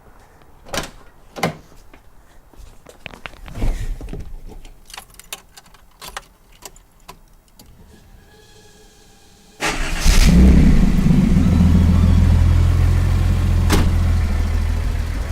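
A series of clicks and knocks, then about nine and a half seconds in the 1975 Datsun 280Z's turbocharged L28ET straight-six fires up suddenly and settles into a loud, steady idle. The engine has freshly fixed vacuum leaks, a restored PCV system and new spark plugs.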